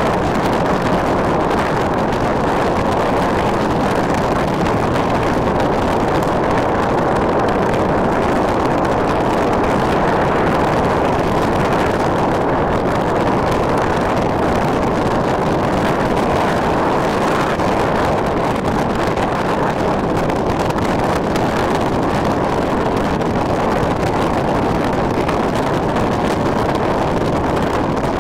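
Steady wind rushing over the microphone, an unbroken deep rushing noise with no gusts or breaks.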